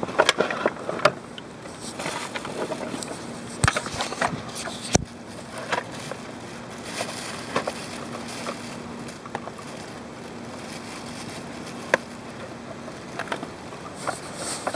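Hands working a wet pond liner against a black plastic pond filter box, with rustling and handling noise and several sharp clicks and knocks of plastic parts, a cluster near the start and single ones around four, five and twelve seconds in.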